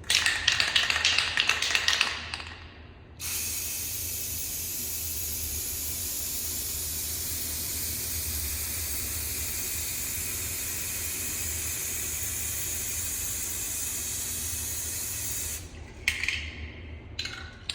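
Aerosol spray paint can spraying a coat of paint in one long steady hiss lasting about twelve seconds, which cuts off sharply. It is preceded by a couple of seconds of louder clattering noise and followed near the end by a few short noisy bursts.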